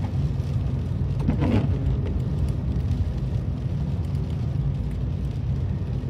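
Steady low engine and road rumble inside a moving car's cabin.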